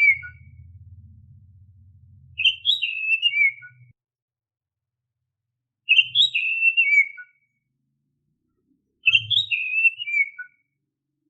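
Oriental magpie-robin (kacer) whistling its typical song: the same short phrase of quick clear notes that leap up and then step down in pitch, repeated three times about three and a half seconds apart.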